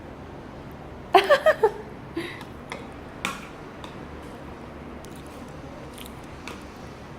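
A toddler's voice: a quick run of four or five short, high vocal sounds about a second in, followed by a few faint clicks and taps.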